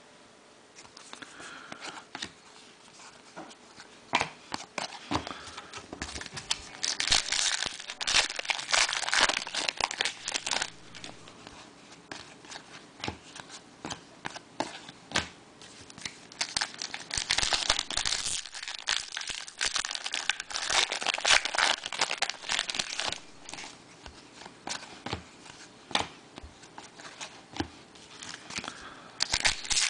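Foil trading-card pack wrappers crinkling and tearing as packs are opened by hand, in uneven stretches of sharp, crackly rustling.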